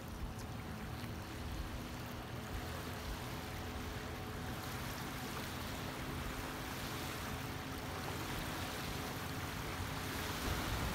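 Steady rushing of wind and small river waves washing on a gravel shore, with a faint steady low hum underneath.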